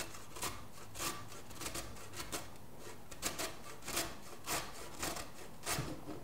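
A peeled beet grated by hand on the coarse side of a stainless steel box grater: a rasping scrape with each stroke, about two strokes a second, uneven in rhythm.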